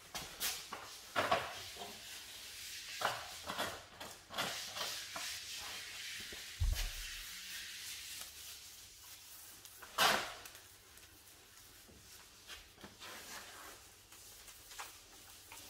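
Paintbrush strokes on a plastered window reveal: irregular scratchy swishes of the bristles brushing paint along the edge. A dull thump comes a little before the middle, and a sharper, louder stroke about ten seconds in.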